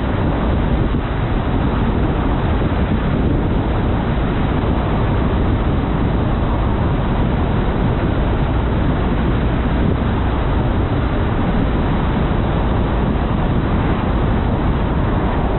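A car driving at road speed: a steady rumble of tyre, engine and wind noise, strongest in the low end.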